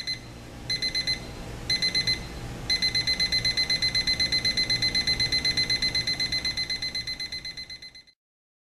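RCA RCD10 travel alarm clock's ascending alarm: high-pitched electronic beeping, first in short groups of about four beeps roughly a second apart, then as continuous rapid beeping from about three seconds in, stepping up as the alarm escalates. It cuts off abruptly near the end.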